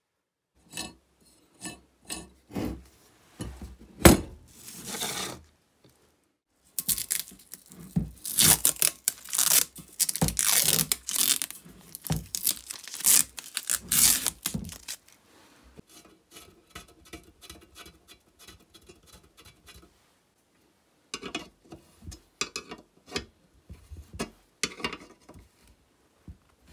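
Hand assembly of a chainsaw's tubular handle frame: scattered clicks and knocks of metal parts, then a long noisy stretch of tape being pulled and torn in the middle, the loudest part, and clicking from a ratcheting wrench tightening a bolt near the end.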